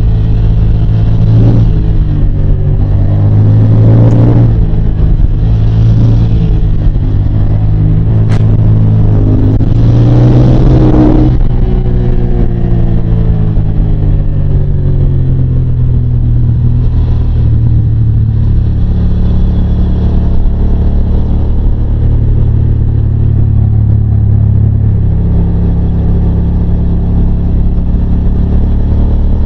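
Yamaha TDM 900's parallel-twin engine under way, revving up hard several times in the first dozen seconds or so, then running at a steadier cruise with small changes in pitch.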